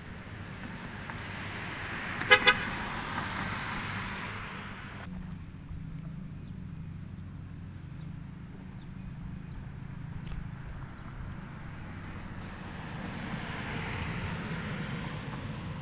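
A car passing on the road gives two quick toots of its horn about two seconds in. Later another car goes by.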